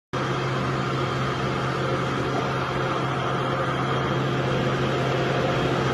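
Steady mechanical hum with a constant low tone, cutting in suddenly and running evenly.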